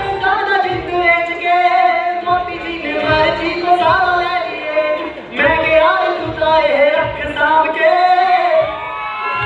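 A man singing solo into a microphone, holding long, wavering notes in phrases, with short breaks for breath about two and five seconds in.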